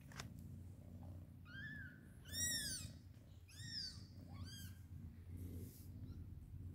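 Newborn kittens mewing while nursing: a handful of short, high, arching mews, the loudest about two and a half seconds in.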